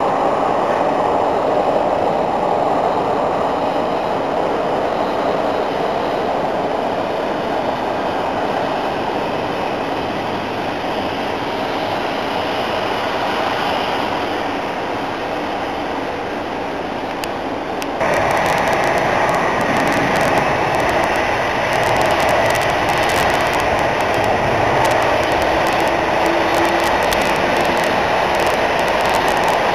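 Jet airliner engines running with a loud, steady roar. About 18 seconds in, the sound jumps suddenly louder and brighter, with a faint steady whine on top.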